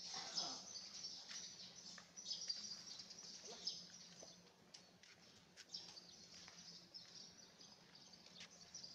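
Faint outdoor background of small birds chirping, with a low steady hum underneath.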